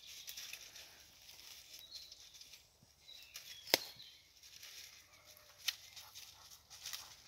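Dry brush and dead leaves rustling, with scattered small cracks of twigs and one sharp twig snap a little under four seconds in.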